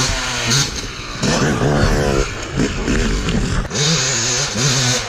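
Yamaha YZ250 two-stroke dirt bike engine revving hard as it is ridden over a dirt jump, its pitch climbing and dropping repeatedly as the throttle is opened and shut.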